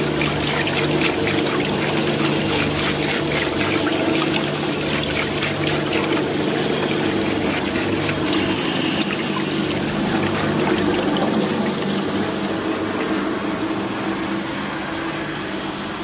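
Sesame washing machine running: its paddle shaft churns water in the stainless steel trough over a steady motor hum, with water splashing and pouring.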